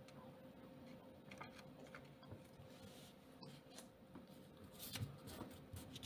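Near silence: room tone with a faint steady hum, and faint rustling of a small paper banknote being handled about five seconds in.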